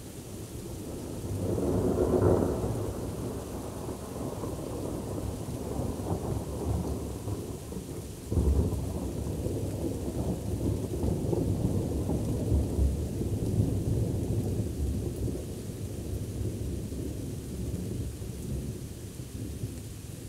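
Thunder during a summer thunderstorm with rain falling. A low rumble swells and peaks about two seconds in; about eight seconds in a sudden clap breaks out and rolls on, slowly fading.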